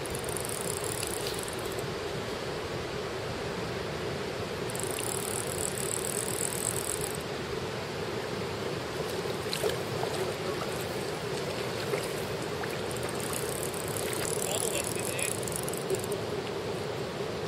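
Steady rushing of flowing water, with a few faint high-pitched hissing patches that come and go and some small scattered clicks.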